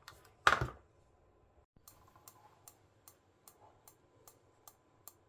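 A short, loud thump about half a second in. Then, from about two seconds in, the party flash strobe ticks at an even beat of about two and a half ticks a second; each tick is one firing of the flash tube.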